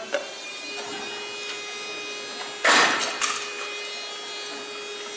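A steady background hum. About two and a half seconds in there is a short, loud scrape, then a smaller one, from hands working on hardware and cables at the camera mount.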